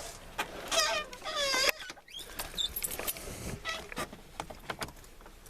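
A creaky squeak about a second in, wavering and falling in pitch, then light clicks and rustling, as of a vehicle door and cab being worked before starting; the engine is not yet running.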